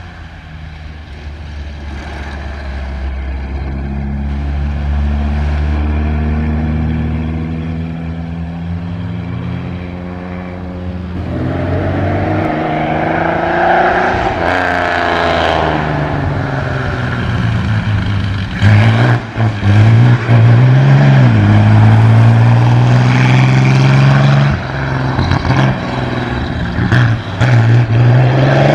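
Vintage racing car engine running hard under acceleration, growing louder and passing close about halfway through. Later it is at its loudest, broken by several brief sharp drops in level.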